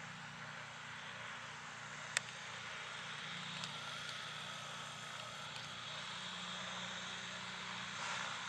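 Steady, low-level aircraft engine noise, an even hiss with a low hum beneath it, and one sharp click about two seconds in.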